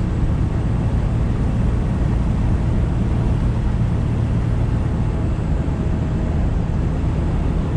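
Steady low drone of a tractor-trailer's diesel engine and road noise, heard inside the cab while cruising on the highway.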